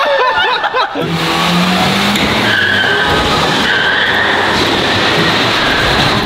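Mini trucks' engines revving under load with tyres spinning and squealing as they pull on a tow line. The racket starts about a second in, after a moment of laughter.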